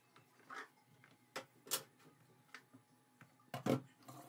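Wooden spoon knocking and scraping against a pan while sauce is spooned over simmering meatballs: about half a dozen short clicks, the loudest two close together near the end.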